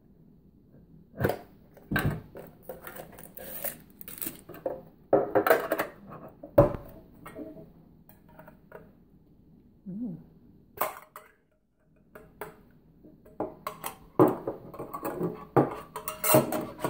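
Hands handling a trading card box and foil booster packs on a wooden table: irregular knocks, clicks and rustling, with a brief pause about two-thirds of the way through.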